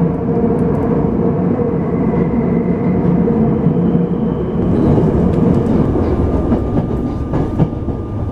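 Subway train running, heard from inside the passenger car: a steady rumble of wheels on rail with a low motor hum. A few sharp knocks come near the end.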